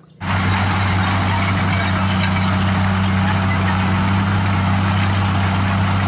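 Crawler bulldozer's diesel engine running steadily while the machine pushes and levels earth: a constant low drone with a hiss above it. It starts abruptly just after the beginning.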